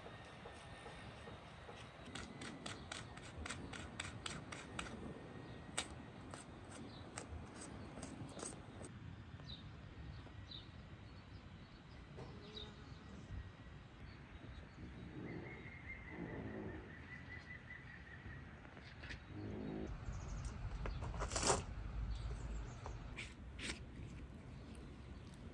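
Knife working over a raw bull leg on a wooden board, trimming off membrane and fat: faint clicks and scrapes, with one sharp knock a little before the end. Birds chirp through it, with a short repeated trill about halfway.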